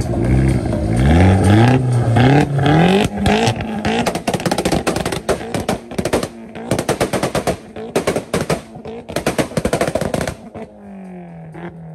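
A tuned car engine revving hard in repeated rising sweeps, then a rapid string of exhaust pops and bangs lasting several seconds. Near the end the cracking stops and the engine note falls away quieter.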